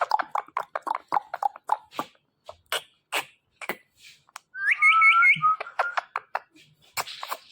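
Pet parrot chattering in a quick run of short notes, then clicking. About five seconds in it gives a trilled whistle, followed by a short held whistle.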